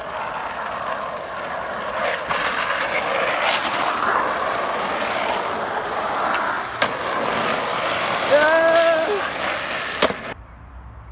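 Skateboard wheels rolling on rough asphalt, building as riders pass, with a sharp board clack about seven seconds in. A short shout comes near the end, then another clack, and the rolling stops abruptly.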